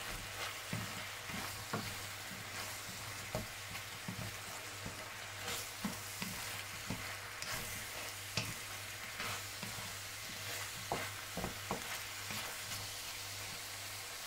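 Bell pepper, pork and garlic sizzling in hot oil in a stainless steel wok, with a wooden spatula stirring and scraping against the pan in frequent short strokes. A steady low hum runs underneath.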